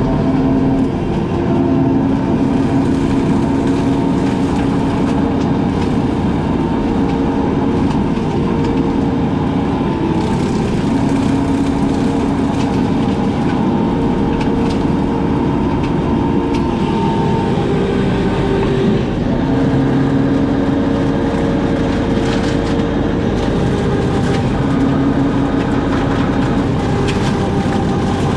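Engine of a brush-cutting machine running steadily under load, its pitch stepping up and down a little as it works.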